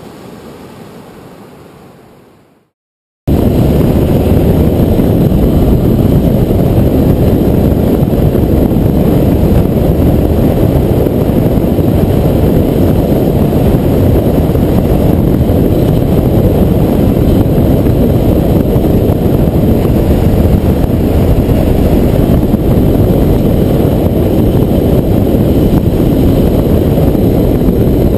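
Wind rushing over the camera microphone of a moving motorcycle, a loud steady rush mixed with engine and tyre noise, cutting in suddenly after a moment of silence about three seconds in. Before it, a quieter wash of noise fades out.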